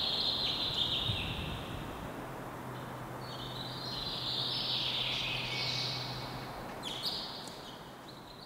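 Outdoor ambience: a continuous high chirping chorus of birds over a low hiss, with a faint low hum in the middle.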